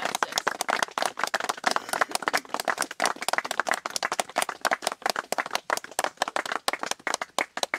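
A small group of people applauding, with dense hand clapping that thins to scattered separate claps near the end.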